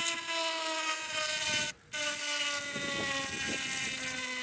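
Rubber inner tube pressed against the tread of a spinning bicycle tyre to scuff the spot for a patch. It makes a steady buzz that slowly drops in pitch as the wheel coasts down. The buzz breaks off briefly just under two seconds in and comes back lower.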